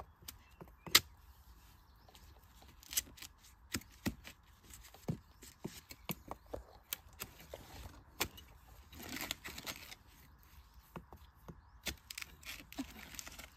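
Irregular sharp cracks and knocks of dry bamboo and brush being chopped and snapped at the base of a bamboo clump, with a longer rustle of dry litter about nine seconds in.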